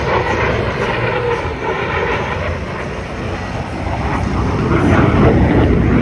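Military fighter jet flying a display pass, a loud, deep jet rumble that swells over the last couple of seconds as the aircraft banks toward the crowd.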